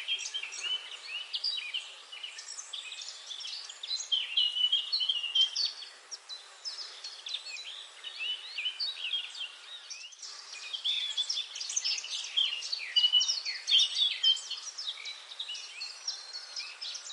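A chorus of many small songbirds chirping and trilling over one another, a dense, unbroken stream of short high-pitched calls, with a momentary break about ten seconds in.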